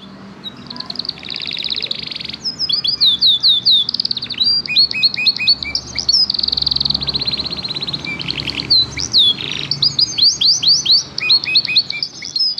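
Canary singing a long, continuous song of fast trills and runs of quickly repeated down-slurred whistled notes.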